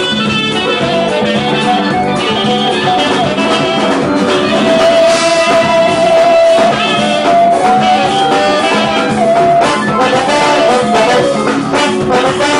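Saxophone playing a forró melody over band accompaniment, with one long held note about five seconds in.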